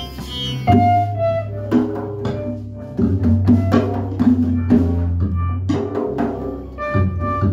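Live instrumental trance music: drums and hand percussion struck in a steady pattern over long held low bass notes that shift pitch every few seconds, with sustained higher synthesizer-like tones.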